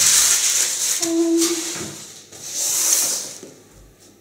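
Packaging rustling as a box of gifts is rummaged through: a long stretch of rustling, then a second shorter one about two and a half seconds in.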